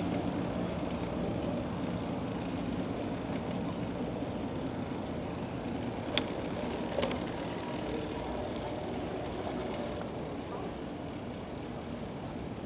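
Steady low engine drone over city street noise, slowly fading, with two sharp clicks a little past the middle.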